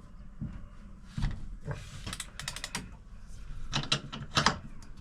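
Ratchet wrench with a 19mm socket clicking as it loosens the top cap of a KYB fork leg: a quick run of clicks about two seconds in, then two louder clicks near the end.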